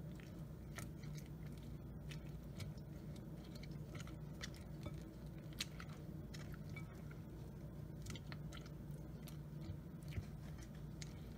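Spatula stirring sliced cucumbers and onions through a creamy dressing in a glass bowl: faint wet squishing with scattered light clicks.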